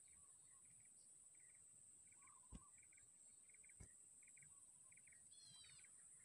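Near silence: faint outdoor ambience with a steady high insect buzz, a small chirp repeating about twice a second, and a short falling bird call near the end. Two soft clicks come in the middle.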